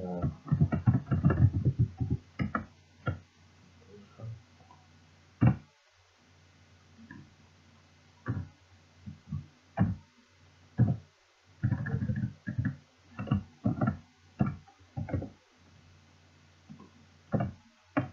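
Computer keyboard typing: bursts of keystrokes with pauses between, a dense run in the first two seconds and another from about twelve to fifteen seconds in, over a steady low hum.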